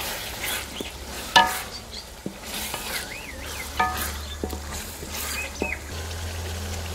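Wooden spoon stirring green peas frying in oil and masala in a steel pot: a steady sizzle with scrapes and clicks, and two ringing knocks of the spoon against the pot's side.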